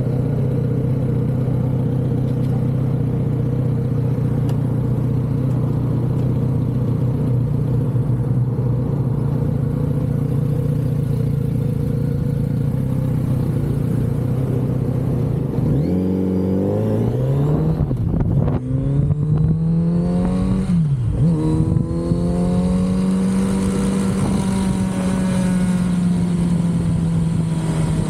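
Kawasaki Z900RS inline-four through its stock exhaust. It runs at a steady engine speed for about sixteen seconds, then revs up under acceleration, with two quick upshifts where the pitch drops, and settles into steady cruising.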